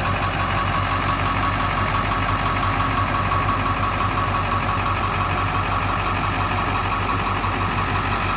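School bus's diesel engine idling steadily: a low, evenly pulsing rumble with a faint steady whine above it.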